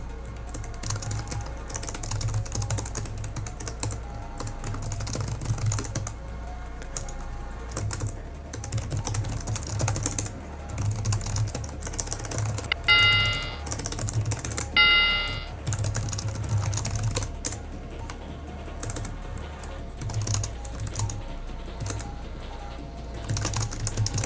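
Computer keyboard typing in quick runs of keystrokes over background music with a pulsing beat. Two short electronic beeps sound about halfway through, a couple of seconds apart.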